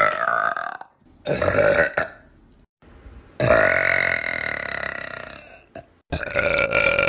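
A series of human belches: a short burp about a second in, then a long drawn-out belch of about two and a half seconds that slowly falls in pitch, then another burp starting near the end.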